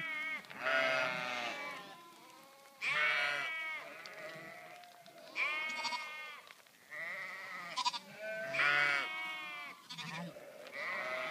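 A flock of sheep bleating as it walks by, calls from several animals overlapping and coming about every two seconds.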